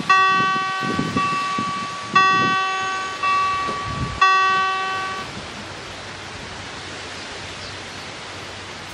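Level-crossing warning bell striking about once a second, each strike a ringing tone with overtones that dies away, while the crossing barriers lower. The ringing stops about five seconds in, leaving a steady background hiss.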